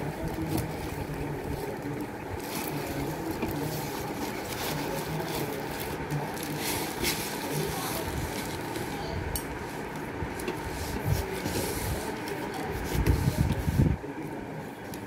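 A paper-and-tape-wrapped parcel being handled and turned over: scattered crinkles, scrapes and taps over a steady background hum, with a louder low rubbing of handling near the end.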